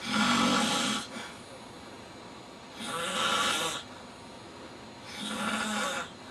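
A man snoring: three snores, each about a second long, coming about two and a half seconds apart.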